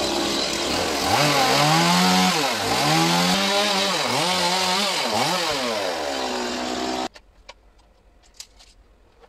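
Two-stroke chainsaw revving up and cutting into the top of a standing log, its engine pitch dipping and recovering several times as it bites. It stops abruptly about seven seconds in, leaving only a few faint clicks.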